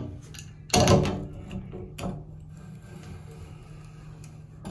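Adjustable wrench knocking against the chrome bonnet nut of an old Delta shower valve as it is set on the nut and snugged down: one loud metallic knock under a second in, then a fainter one about two seconds in, over a steady low hum.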